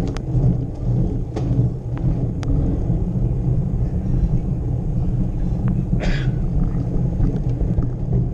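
Steady low rumble and vibration of a bicycle riding over cobblestones, picked up through a bike-mounted action camera, with scattered sharp rattling clicks from the bumps and a short hiss about six seconds in.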